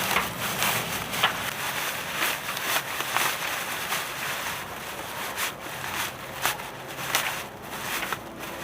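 Irregular sharp crackles and taps, several a second at uneven spacing, over a steady outdoor hiss.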